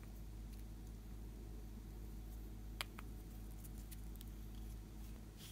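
Quiet handling of slime-making materials: two light clicks about three seconds in, over a steady low hum.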